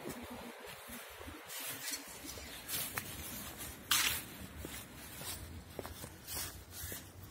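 Footsteps scuffing along a paved path, about one step a second, with one louder scuff about four seconds in.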